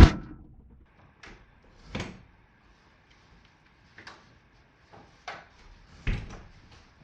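A string of separate knocks and clunks, like a door or drawer being handled: a loud one at the start, smaller ones about one, two, four and five seconds in, and a heavier one about six seconds in.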